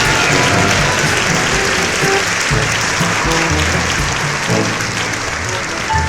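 Comic background music with a bouncing bass line, over a steady rush of applause-like noise.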